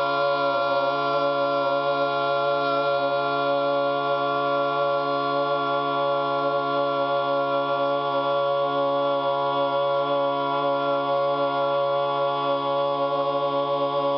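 Music: one long chord held without change, with a choir-like or organ-like sound.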